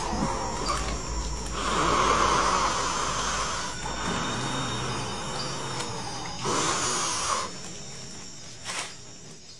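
A person breathing hard and noisily close to the microphone, in long rasping breaths about a second apart. The sound fades out near the end.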